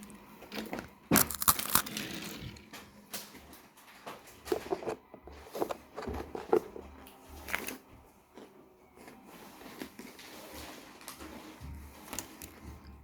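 Biting and crunching freeze-dried astronaut ice cream: irregular crisp cracks, the loudest cluster about a second in.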